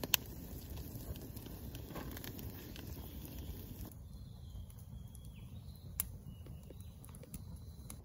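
Wood campfire crackling, with sharp pops just after the start and again about six seconds in. About halfway the low rush of the flames drops away, leaving lighter crackles and faint high whistles.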